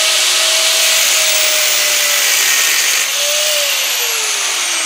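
Small angle grinder running at full speed, its cutting disc nicking alignment marks into a Salisbury axle's pinion, pinion nut and flange. About three seconds in it is switched off, and its whine falls steadily as the disc spins down.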